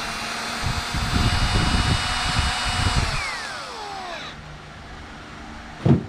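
Power drill driving a light switch's mounting screw into a metal electrical box: the motor runs at a steady whine, then the trigger is let go about three seconds in and the whine falls in pitch as the motor spins down, the screw run up close and stopped short of over-tightening. A single sharp knock near the end.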